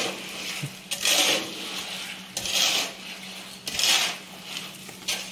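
Repeated rasping scrape strokes, about five of them, each about half a second long and coming roughly every 1.3 seconds, with a steady low hum underneath.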